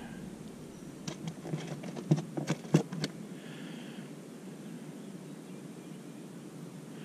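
A quick run of light knocks and taps, about eight or nine in two seconds, starting about a second in, then only a low steady background.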